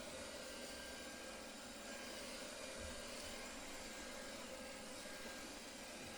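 Xiaomi Dreame D9 robot vacuum running: a steady whirring hum of its suction fan, with a few faint steady tones.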